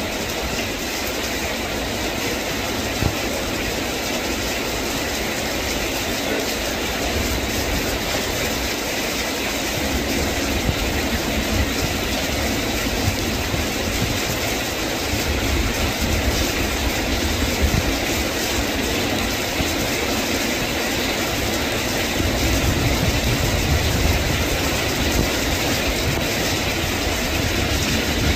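Heavy tropical downpour: steady rain falling into puddles and onto wet gravel, with a low rumble underneath.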